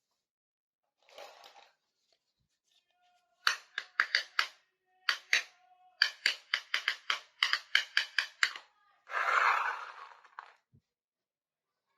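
Quick runs of sharp clicks and taps as small miniature toy kitchen pieces are handled and set down, followed by a short rustle near the end.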